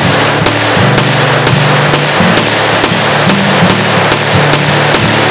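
Loud intro music with a driving beat, about four hits a second, over a dense noisy wash and a changing low bass line.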